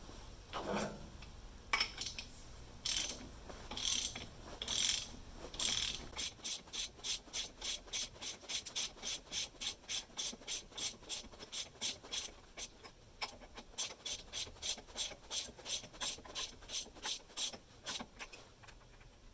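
Ratchet wrench clicking as it turns a new stud into a Dana 44 steering knuckle: a few slower, longer strokes first, then a steady run of short clicks, about three a second, that stops near the end.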